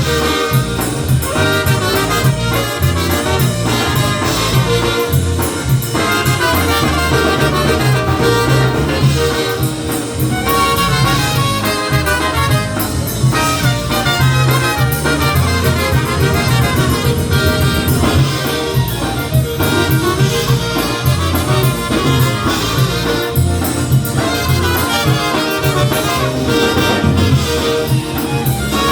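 Live polka band playing an instrumental passage led by brass horns over a steady bass beat, with no singing.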